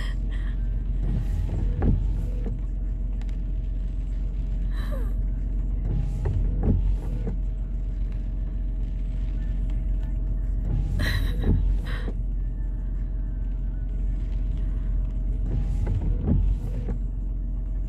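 Vehicle engine idling, heard from inside the cabin as a steady low rumble, with a few short knocks and clicks now and then.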